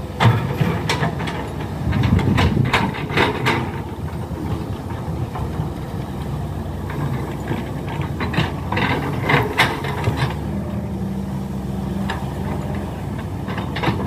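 Diesel engines of hydraulic excavators working, a steady low hum, with short sharp knocks now and then as they dig in wet clay.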